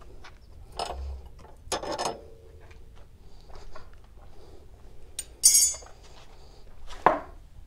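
Loose steel strut-tower plates clinking and clanking as they are lifted off and set down on concrete: scattered sharp clicks, a clink with a short ring about two seconds in, a loud bright jangling clatter around five and a half seconds, and a sharp knock near the end.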